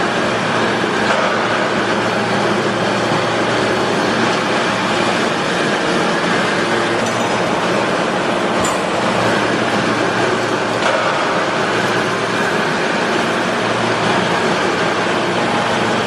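Hydraulic scrap-metal baling press running: a steady, even noise from its electric motor and hydraulic pump, with a faint click or two around the middle.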